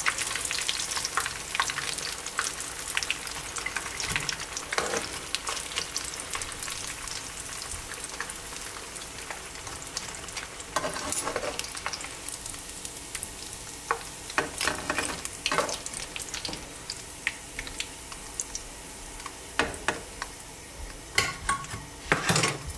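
Tempura-battered pieces deep-frying in hot oil, a dense crackling sizzle that gradually quietens. Scattered sharp clicks and knocks, more of them in the second half.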